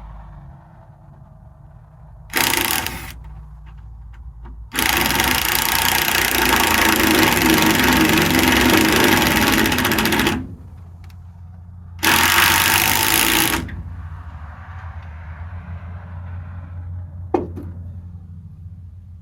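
An engine running steadily, with three loud bursts of harsh mechanical noise laid over it: a short one, a long one of about five seconds and another short one, each starting and stopping abruptly. A single sharp click comes near the end.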